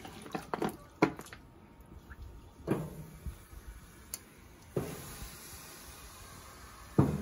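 Water-soaked wood smoking chunks being set into the charcoal firebox of an offset smoker: about six separate knocks and clunks of wood on charcoal and the box, irregularly spaced, the loudest about a second in and near the end.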